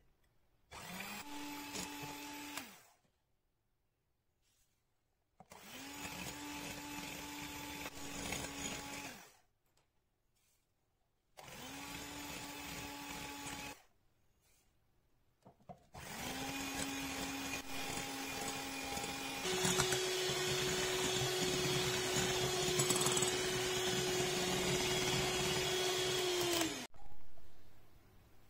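Polaris electric hand mixer whirring as its beaters whip eggs into a foam in a glass bowl, in four runs separated by short silences. In the last and longest run, about two-thirds of the way through, the motor's hum steps up in pitch and gets louder as it goes to a higher speed.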